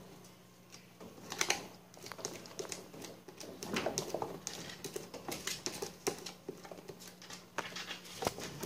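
Kittens scrambling and play-fighting on a plastic cage floor: quick, irregular clicks and taps of claws and paws, starting about a second in, over a faint steady hum.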